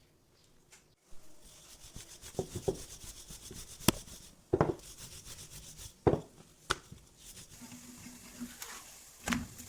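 Rubbing and scraping during kitchen handwork, starting about a second in, with a few sharp clicks and dull thumps along the way.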